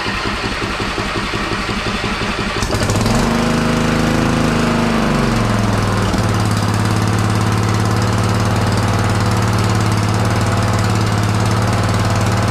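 Riding lawnmower engine running loud through a homemade welded exhaust pipe and muffler. It pulses at low speed, gets louder about three seconds in as it speeds up, then settles into a steady run by about six seconds.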